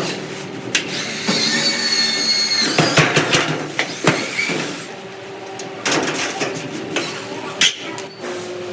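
Workshop clatter: scattered knocks and clicks of tools and metal parts being handled during washing machine assembly, over a steady machine hum, with a brief high squeal about two seconds in.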